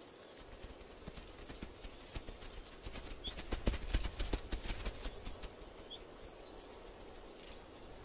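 A bird repeats a short chirp that rises and falls, about every two and a half seconds, three times. Between about three and five seconds in, a run of soft knocks and rustles comes in under it.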